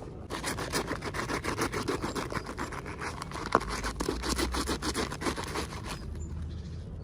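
Plastic packaging being handled and opened, crinkling and rustling in quick crackles for about six seconds, with one sharp snap about three and a half seconds in.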